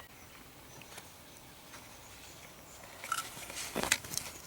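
Faint handling noise: a few isolated light clicks, then a short cluster of clicks and scraping about three seconds in.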